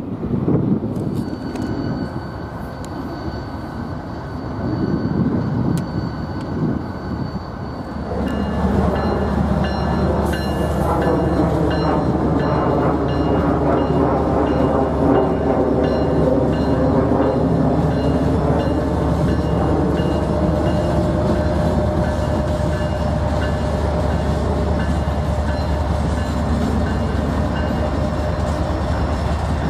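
A freight train rolls slowly past with a steady high squeal over the wheel rumble. About eight seconds in, a diesel freight locomotive approaches a grade crossing: the crossing bell rings repeatedly over the growing engine and wheel noise.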